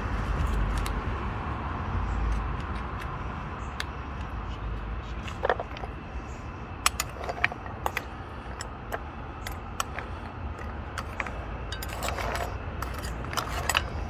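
A metal spoon clinking and scraping against clam shells and the cast-iron Dutch oven while butter is stirred into the clam broth: irregular sharp clinks, most of them from about five seconds in, over a steady background hiss.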